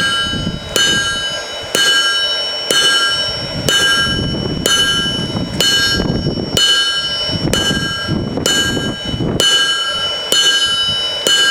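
Blacksmith's hammer striking a hot steel chisel on the anvil, about one blow a second, each blow leaving the anvil ringing. These are heavy enough blows to be visibly moving the metal as the chisel is shaped.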